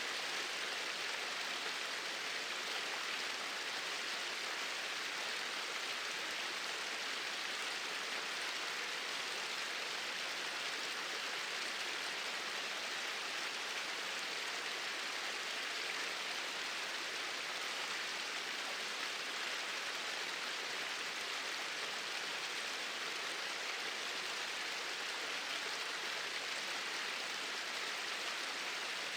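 Small waterfall splashing steadily, an even rushing hiss of falling water with no change in level.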